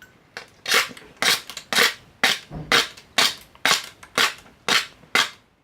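Sharp, evenly spaced knocks from a hand tool striking a small electronic part, about two a second and about ten in all, starting under a second in. The part is being deliberately damaged so it can't be used again.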